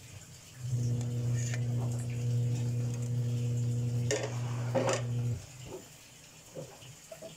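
Glass pot lid lifted off a stainless steel pot and set down, clinking sharply twice against metal about four and five seconds in. Under it, a steady low hum that starts about a second in and stops a couple of seconds before the end.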